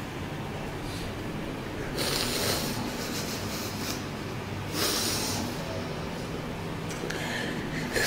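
A man weeping into a microphone, with two sharp, snorting sniffs or sobbing in-breaths, about two seconds and about five seconds in, and quieter breathing between them.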